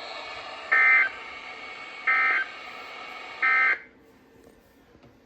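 Emergency Alert System end-of-message signal on NOAA Weather Radio: three short bursts of warbling SAME data tones about a second and a half apart, over radio hiss. The hiss cuts off suddenly just after the third burst as the broadcast ends.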